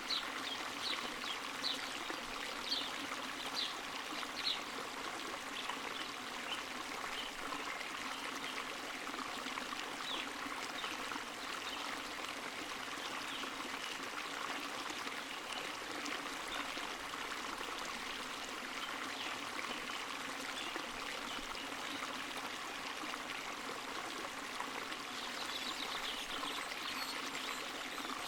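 Spring water running and trickling steadily, with small bright splashes breaking through now and then, most often in the first few seconds and again near the end.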